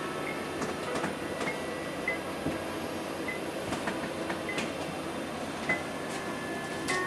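Musical crib mobile playing a slow tune of soft, thin electronic notes, about one a second, over a steady whir.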